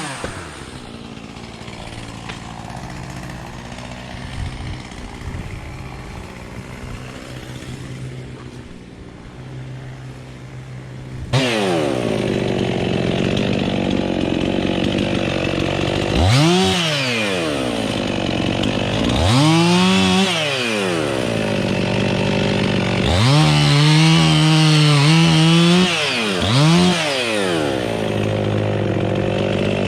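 Gas chainsaw idling, then opened up sharply about eleven seconds in and cutting into the oak, its pitch rising and falling several times as the throttle is opened and eased.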